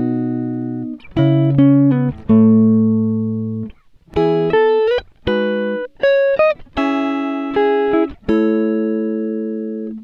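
Background music: a guitar playing a slow melody of held, fading notes, a few of them sliding in pitch.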